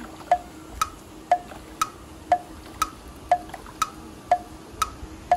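Clock tick-tock sound effect: evenly spaced woody ticks, about two a second, alternating between a lower and a higher tick.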